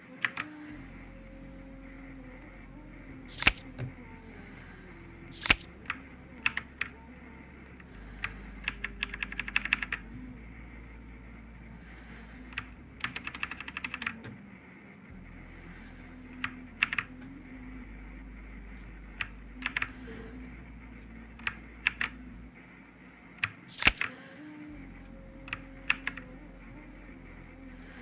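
Keys of a Machenike K500A-B84 mechanical keyboard being pressed. Mostly single sharp keystrokes a second or two apart, with two quick runs of typing about nine and thirteen seconds in, over a faint low hum.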